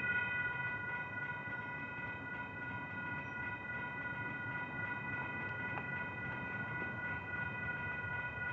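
Railroad grade-crossing warning bell ringing steadily as the gates come down, a train approaching, over a low background rumble.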